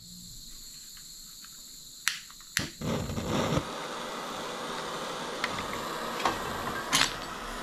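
MAP gas torch being lit: gas hissing from the nozzle, two sharp clicks a little over two seconds in, then the flame catches and burns with a steady rushing noise. Another click comes near the end.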